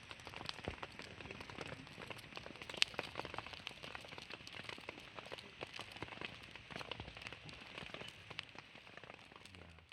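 Rain falling, a dense steady patter of small drop ticks, with one sharper, louder tick about three seconds in. It fades out near the end.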